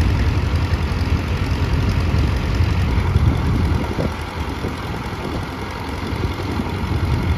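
Ford 4000 tractor engine running at a steady low speed as the tractor moves slowly away. The rumble eases a little past the middle and builds again near the end.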